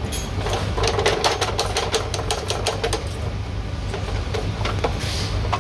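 A ratchet wrench clicking in a fast run of about two and a half seconds while a mechanic works bolts under the rally car's gearbox, followed by a few single metallic clicks, over a steady low hum.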